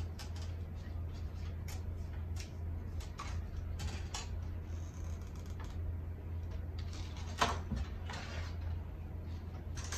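Handling noises of a cardboard frame and wire being worked on a wooden tabletop: scattered light clicks and scrapes, with one sharp knock about seven and a half seconds in as something is set down, over a steady low hum.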